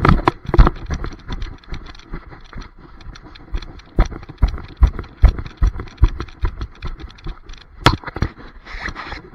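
Irregular thumps and rubbing knocks from a body-worn action camera jostling on a running dog, with rustling between them and one sharper knock near the end.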